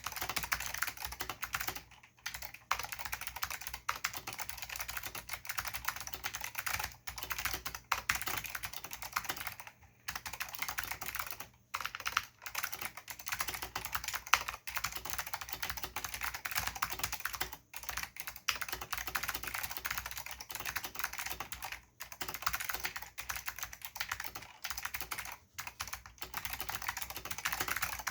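Steady typing on a custom Filco Zero mechanical keyboard with lubed Alps SKCM White switches and Alps doubleshot keycaps: a fast, dense run of key clicks and keycap clacks, broken by a few short pauses.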